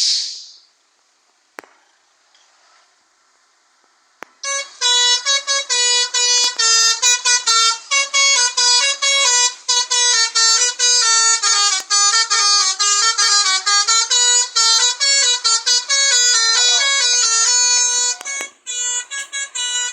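Bus telolet 'basuri' melody horn playing a tune: a run of horn notes stepping up and down in pitch with short breaks between them, starting about four seconds in after a hiss fades out.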